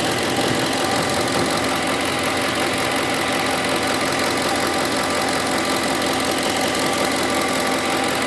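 Ford 5.4-litre Triton V8 of a 2008 F-150 idling steadily with an even, repeating tick that the owner cannot identify.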